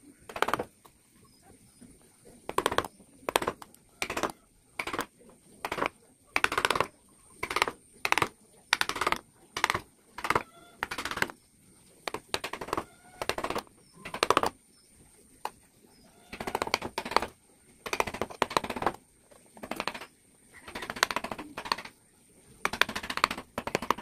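Carving chisel pushed by hand through wood, cutting one short scraping stroke after another, about one a second with some quick runs of strokes.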